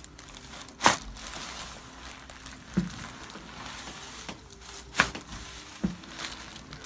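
Sharp cracks during a chiropractic adjustment: two loud ones, about a second in and about five seconds in, with a couple of fainter clicks between.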